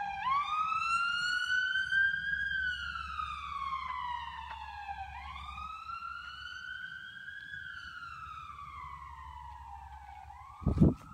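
Emergency vehicle siren on a slow wail, its pitch climbing and falling about every five seconds, growing fainter as it goes. A few loud, low thumps come near the end.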